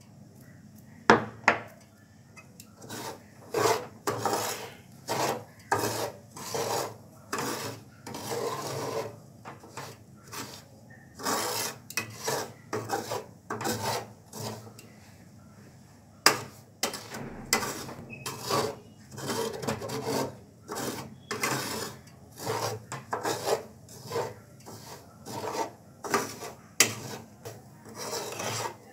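Metal spatula scraping and stirring semolina in a frying pan, in repeated short strokes roughly one a second, with a few sharp knocks against the pan.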